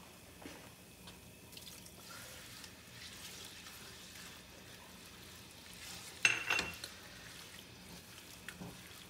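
Onion-and-tomato curry masala sizzling faintly in a nonstick frying pan as it is stirred with a spatula, with a little water being added. A sharp clack of the spatula against the pan comes about six seconds in, the loudest sound.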